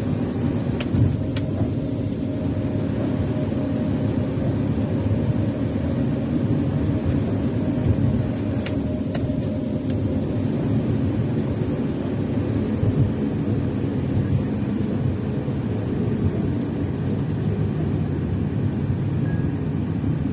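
Steady road noise of a car driving on a wet road, heard from inside the cabin, with a few faint clicks about a second in and again about halfway through.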